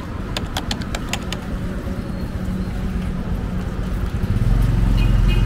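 Street traffic: a motor vehicle's engine running, growing much louder about four seconds in as it comes close, with a horn starting to toot right at the end. A quick run of sharp clicks near the start.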